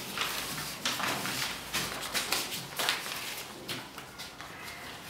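Stiff paper cards being opened, flapped and shuffled close to desk microphones: irregular crisp rustles and light taps against the table, thinning out over the last second or so.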